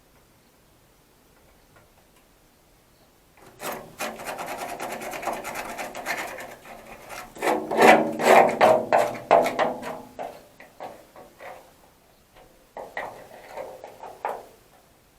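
Rough scraping and rubbing strokes begin about three and a half seconds in and are heaviest around the middle. Near the end they break into short, separate scrapes.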